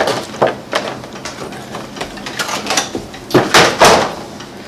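Cardboard box with a stiff clear plastic window being handled and moved aside: a run of plastic crackles and light knocks, with a louder cluster between three and four seconds in.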